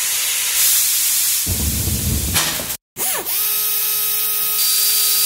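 Steady hiss of a furnace melting platinum, with a low rumble swelling for about a second, then cut off abruptly. After a brief gap, a welding arc starts: a steady hum over a hiss, opening with a short dipping whine.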